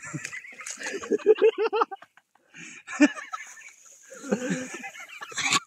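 Wordless human vocal sounds in short pitched bursts, repeated several times, with no words spoken, over a faint high hiss.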